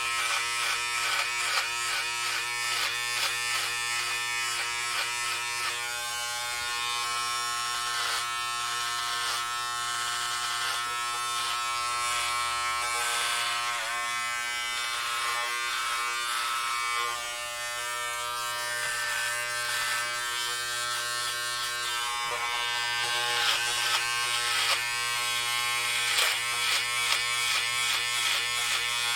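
Electric hair clippers buzzing steadily while cutting hair, with small shifts in tone and loudness as the blades move through it.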